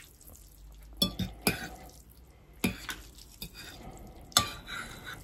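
Metal forks clinking and scraping against ceramic plates while ramen noodles are twirled, with about five short sharp clinks spread over the few seconds.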